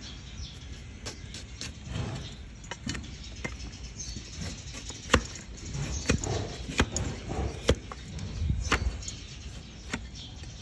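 Large flat steel hoof blade paring the horn of a donkey's hoof sole: rough scraping with a string of sharp cracks as slices of horn shear off. The loudest cracks come about five and nearly eight seconds in.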